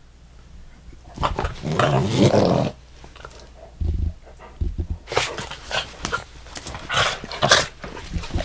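Dogs growling and grumbling in short bouts. The longest bout comes about a second in, and shorter noisy bursts follow later.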